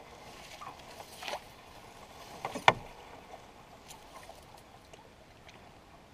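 Canoe sliding out of tall reeds, the stems brushing along the hull, with a soft swish about a second in and a sharp knock about two and a half seconds in, then only faint scattered ticks.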